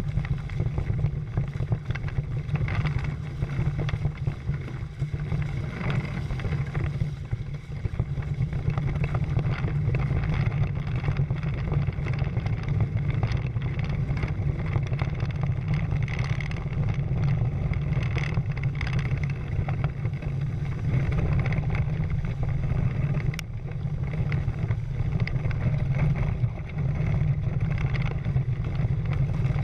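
Water rushing and splashing along the hulls of a Prindle 16 catamaran under sail, over a steady low rumble of wind on the camera's microphone.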